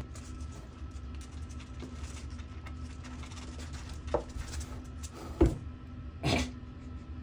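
A kitten hopping and pouncing on a wooden floor: small taps and a few sharp knocks and thumps over a faint steady hum, the loudest knock about five and a half seconds in.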